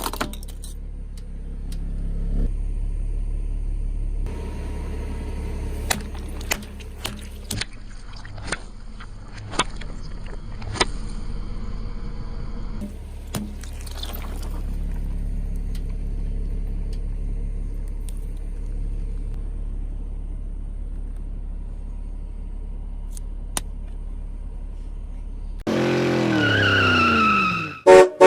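Car engine running low and steady as the car rolls over objects, with scattered sharp cracks and crunches as they break under the tyres. Near the end a loud pitched sound slides down in pitch and cuts off suddenly.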